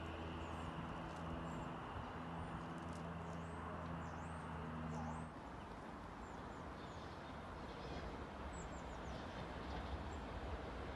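Steady low hum of a distant approaching train, with small birds chirping now and then. About five seconds in the hum cuts off abruptly, leaving a faint background hiss with a low rumble slowly building near the end.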